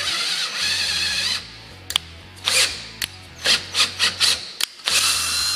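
Ryobi drill spinning a tap through the M6 retaining-screw threads of a wheel hub to clean them: a steady whirring run of about a second and a half, then a string of short trigger bursts, and another steady run near the end.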